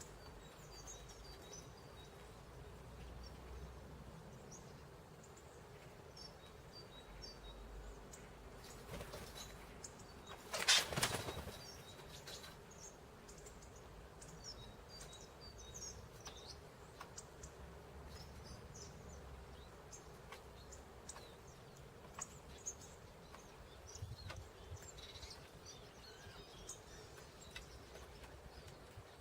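Small songbirds chirping faintly and sporadically at a winter bird feeder, short high calls over a low steady background hiss. About eleven seconds in, a brief loud rush of noise lasts about a second.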